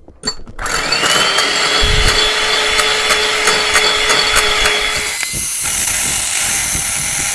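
Electric hand mixer starting up about half a second in and running steadily with a high whine, its wire beaters whisking egg whites in a glass bowl to a foam, with light regular ticking.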